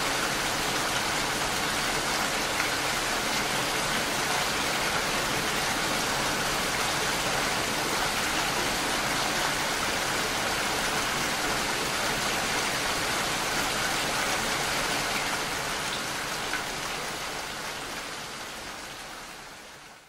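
Steady rain falling, an even hiss of drops, fading out over the last few seconds.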